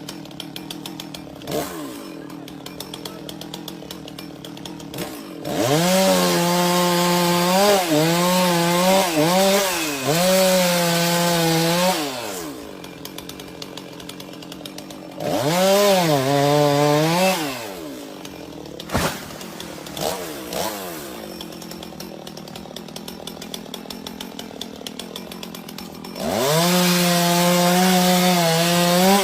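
Two-stroke chainsaw idling with a fast ticking, revved up to full speed three times to cut wood: about five seconds in for several seconds, at about fifteen seconds for a couple of seconds, and again near the end. Each time, the pitch climbs sharply as it speeds up and drops back as it returns to idle.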